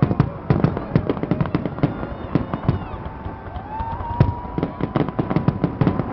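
Fireworks display: a rapid, irregular barrage of bangs and crackles, with whistling tones gliding over it and one whistle rising and then holding steady about two-thirds of the way through.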